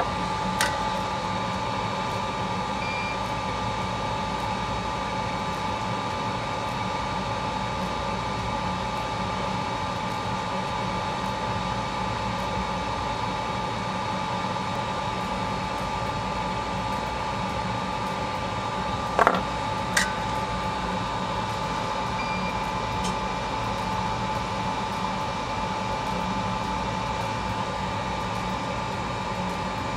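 Steady machine hum with a constant high whine, unbroken throughout, with a few light clicks: one just after the start and a pair about two-thirds of the way through.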